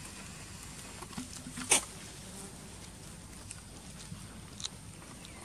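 Outdoor ambience under a steady faint high hiss, with a few short clicks and rustles, the sharpest one just under two seconds in.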